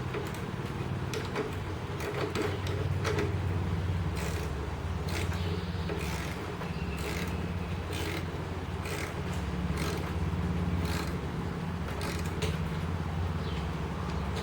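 Hand tools clicking and scraping on metal in irregular strokes as a nut is tightened down on a crimped wire lug, over a steady low hum.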